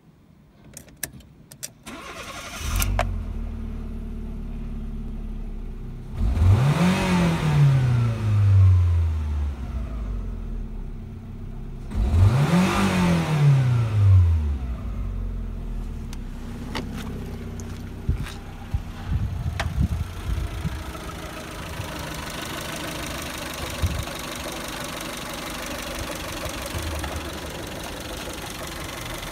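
Fiat Punto 1.2 litre four-cylinder petrol engine (188A5000) started with the key after a few clicks, catching almost at once and settling to idle. It is then revved twice, each time rising to about 4,000 rpm and falling back, before running at a steady idle with a few light clicks and knocks near the end.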